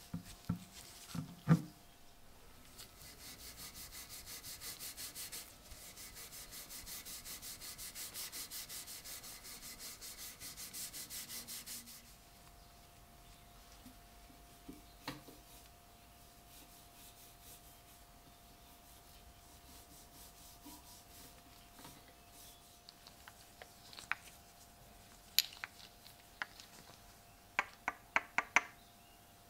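A cloth rubbing wax paste onto a wooden drawknife handle in quick, even back-and-forth strokes for several seconds, then more softly. There are a few knocks at the start and a scatter of sharp clicks near the end.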